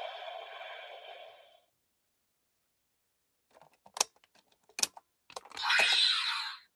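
A tail of electronic tones fading out, then after a pause two sharp plastic clicks and a louder plastic scrape as a toy Wonder Ride Book is unclipped and pulled out of its slot.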